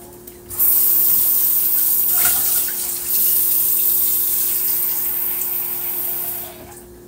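Water running from a kitchen faucet into the sink: turned on about half a second in, a brief dip in the flow around three seconds, and turned off near the end.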